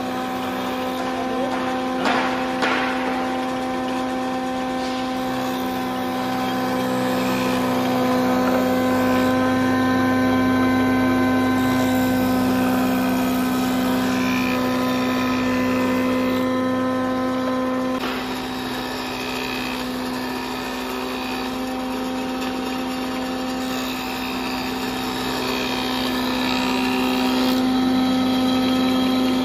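Woodworking planer machine running with its built-in cup grinding wheel sharpening the planer blades: a steady motor hum under a grinding hiss. The grinding eases about 18 seconds in and builds again near the end.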